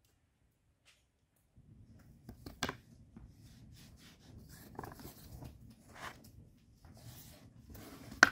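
A plastic dough scraper knocking and scraping on a floured wooden board as soft dough is cut into small pieces, a handful of short knocks and scrapes, the loudest about two and a half seconds in and another sharp one at the very end. The first second and a half is near silence.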